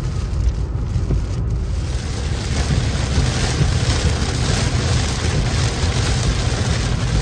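Heavy rain beating on a car's windshield inside the moving car, over a steady low rumble of road and tyre noise. The rain grows heavier a couple of seconds in.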